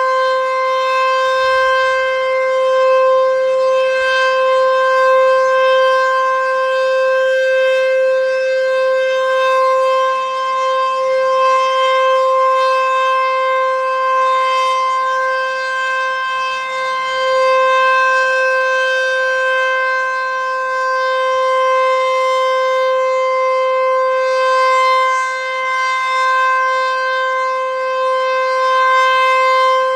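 Sentry 14V-B outdoor tornado warning siren sounding its full-alert signal: one steady held pitch with overtones, no rise or fall in pitch. It swells and fades slightly every few seconds.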